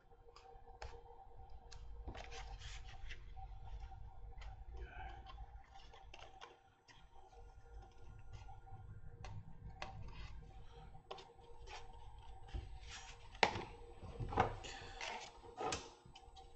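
Small handling noises as a lightweight model-aircraft wing is fitted and the model is turned over in the hands: faint scattered clicks and rustles. Near the end come a few sharper taps and knocks as the model is set down on a cutting mat and a ruler is picked up.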